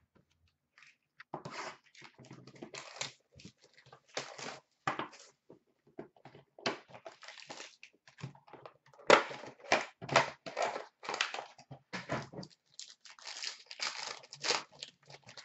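Panini Playbook hockey card box and its pack wrappers being opened by hand: irregular crinkling and tearing, busiest and loudest about two-thirds of the way through.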